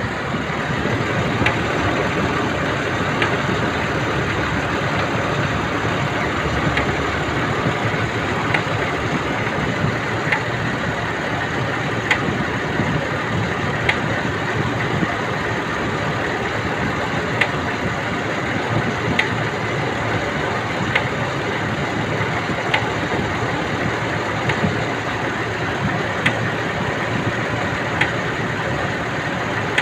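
Nissan Elgrand engine idling steadily, with a sharp tick repeating evenly about every second and three-quarters.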